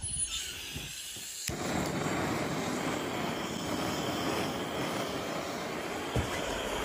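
A steady rushing noise, like a jet engine, that cuts in suddenly about a second and a half in and holds without a break, with a single low knock near the end.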